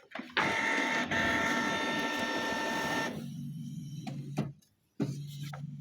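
Canon PIXMA G4411 ink tank printer's internal motors whirring for about three seconds as the mechanism runs through its start-up with the cartridges now locked in, with a click early on. Then a lower, quieter steady hum.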